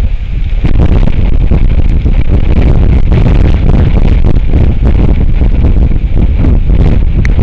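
Strong wind buffeting an outdoor microphone: a loud, gusty low rumble with no let-up. There is a very short high-pitched sound just before the end.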